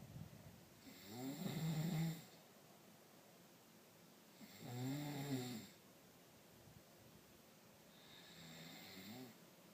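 A man snoring in his sleep: three snores, one every three to four seconds, the last one fainter.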